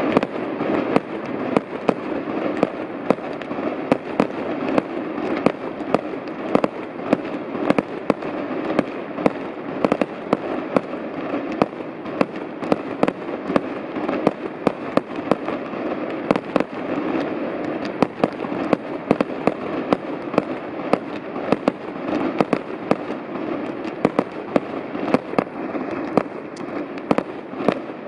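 Fireworks display: aerial shells and fountains firing in rapid succession, with sharp bangs several times a second and no pause, over a steady rushing noise.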